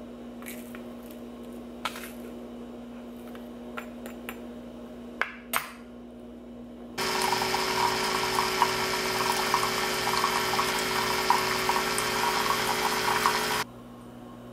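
A few light clicks and taps of a spoon scooping ground coffee into a reusable single-serve pod. About seven seconds in, a single-serve pod coffee maker starts brewing, its pump humming steadily as coffee streams into a mug, then cuts off suddenly about six seconds later.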